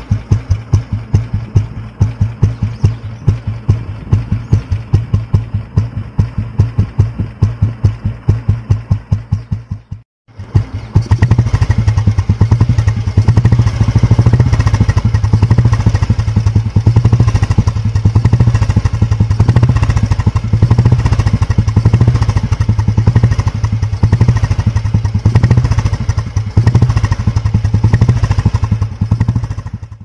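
Old Royal Enfield Bullet single-cylinder four-stroke engine running on its stand, its exhaust note a slow even thump of about five beats a second. After a brief break about ten seconds in, it comes back louder with a faster, denser beat.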